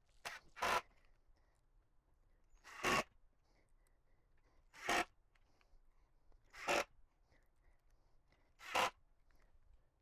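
Power drill run in five short bursts about two seconds apart, each swelling and cutting off sharply, as small wood screws are driven into a wooden drawer box to mount a drawer slide.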